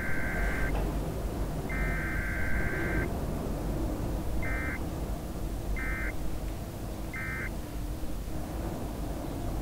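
Electronic beep tones: a long beep that ends under a second in, another long beep of over a second, then three short beeps about a second and a quarter apart, over a steady low rumble.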